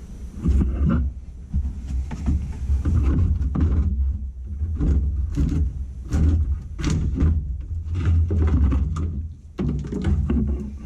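Irregular metallic knocks and clunks from work on the truck's cab, over a steady low rumble.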